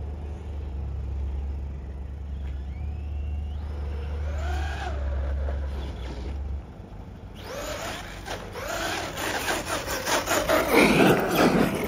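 Radio-controlled car driving on asphalt, its motor whining up and down in pitch, then growing louder with tyre scrub and rattling as it comes close near the end. A steady low hum runs underneath and stops about halfway.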